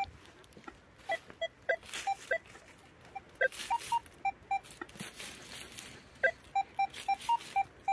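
Metal detector signalling a buried target: short electronic beeps that step between two close pitches as the coil is swept back and forth over the spot. They come in runs of about three a second, with a lull in the middle.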